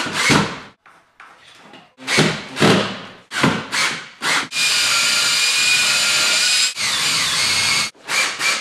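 Makita cordless drill driving screws through a shelf support bracket into the wall. The motor runs in several short bursts, then in one long steady run of about three seconds from about halfway in, then in short bursts again near the end.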